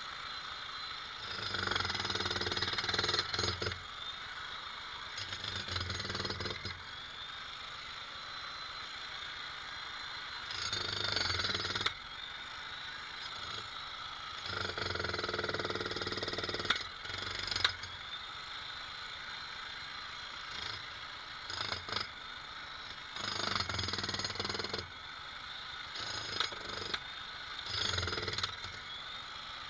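Jackhammer hammering in short bursts of one to three seconds with pauses between, about nine bursts in all, over a steady background running sound.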